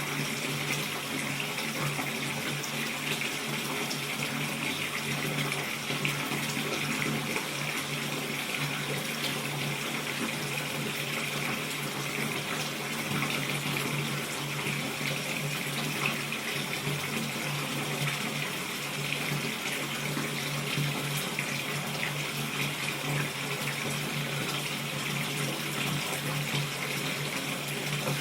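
Bathtub filling from the tap: a steady stream of water splashing into the tub.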